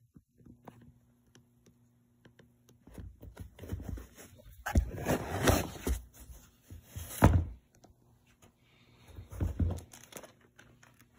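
Handling noise as a sneaker is picked up and turned in the hand: rubbing and rustling with two sharp thuds in the middle, then another short burst of rubbing near the end.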